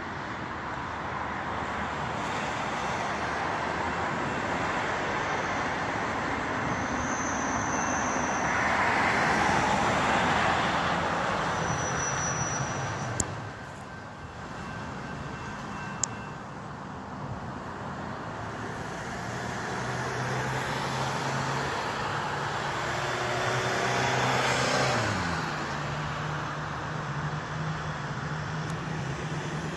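Road traffic on a multi-lane street: cars passing by in a steady rush, swelling loudest twice, with a falling engine pitch as one vehicle goes past and a low steady engine hum after it. Two sharp clicks in the middle.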